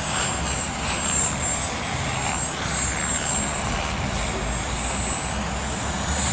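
Radio-controlled model helicopter flying, its rotor and motor giving a steady high-pitched whine that wavers slightly in pitch, over a low rumble.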